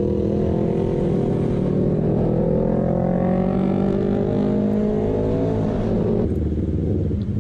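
A motorcycle engine pulling under acceleration while riding, its note climbing steadily for about six seconds before the throttle eases off and the sound drops.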